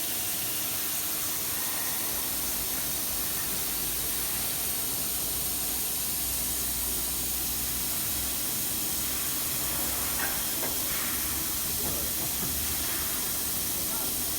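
Steady hiss from a 4-axis CNC aluminium processing center running, with a few faint ticks near the end.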